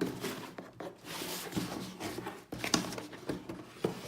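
Cardboard shoe box being handled, with rustling scrapes and a few light knocks.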